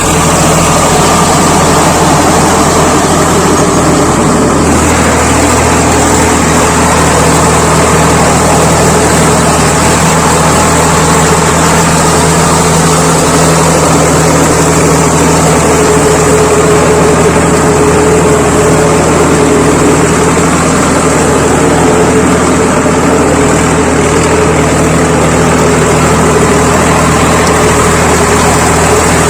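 Tractor diesel engine running steadily, its tone shifting slightly about four and a half seconds in.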